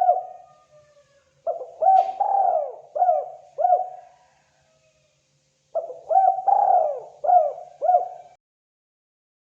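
Spotted dove cooing: two phrases of about five arching coos each, one starting about a second and a half in and the other near six seconds, with a short click during the first phrase.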